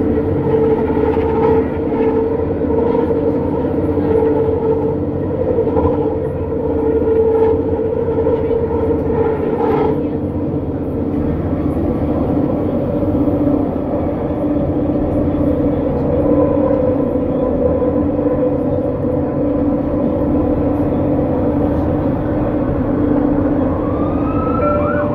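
SkyTrain car running along its elevated guideway, heard from inside the car: a steady hum of the linear induction motor with two held tones over the rumble of the wheels on the rails. A rising whine starts near the end.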